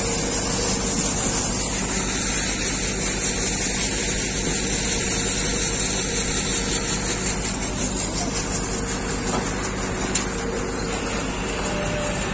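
Construction machinery running steadily: the continuous mechanical drone of a concrete canal-lining paver and other site machinery, with a constant hiss over it.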